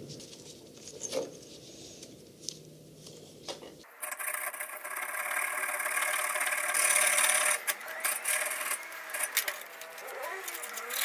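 A flat hand file scraping across a steel clip part clamped in a vise. It starts suddenly about four seconds in after a few light clicks, runs as one long swelling stretch, then breaks into shorter uneven strokes near the end.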